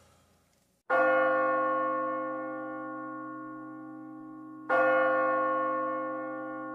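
A church bell struck twice, about four seconds apart, each stroke ringing on and slowly dying away. The first stroke comes about a second in, after a brief silence.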